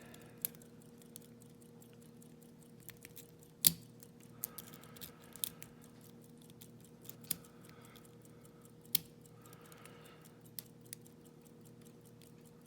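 Lock pick and tension wrench working in the keyway of a Yale railroad switch lock during single-pin picking: scattered small metallic clicks and ticks, the sharpest about three and a half seconds in, over a faint steady hum.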